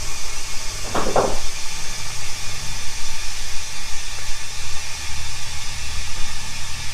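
Compressed air hissing steadily through an air chuck into a freshly plugged truck tire, inflating it.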